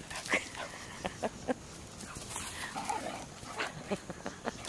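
Two dogs playing on a forest floor, their paws scrabbling and running through dry leaves and twigs with repeated sharp crackles and snaps. A short dog vocalisation comes about three seconds in.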